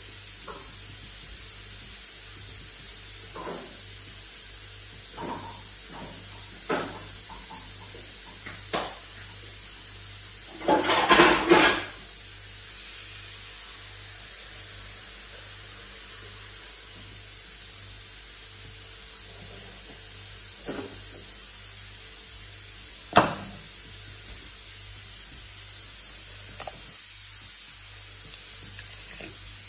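Dishes and kitchen utensils being handled, clinking and clattering. There are scattered clinks, a short burst of clattering about eleven seconds in, and a single sharp knock about twenty-three seconds in, all over a steady hiss.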